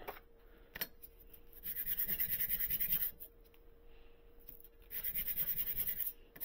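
Metal printing plate scrubbed back and forth by hand on 100-grit sandpaper laid flat on a stone slab: two runs of quick, even strokes of about a second and a half each, with a pause between. The plate is being flat-sanded to take its high spots down.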